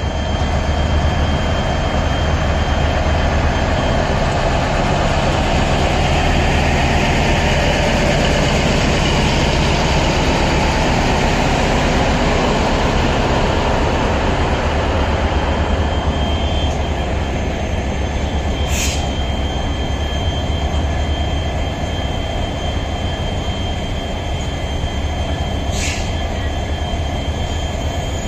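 Diesel-electric multiple unit (DEMU) pulling out past the platform: the power car's diesel engine runs with a steady low hum under the rolling noise of the wheels on the rails. Two brief high wheel squeals come in the second half.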